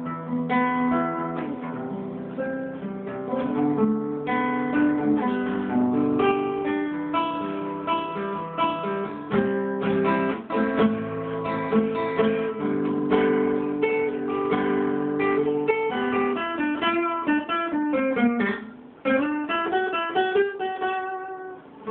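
Acoustic guitar played solo, mixing strummed chords and picked notes, with quick runs of single notes near the end and a short break about 19 seconds in.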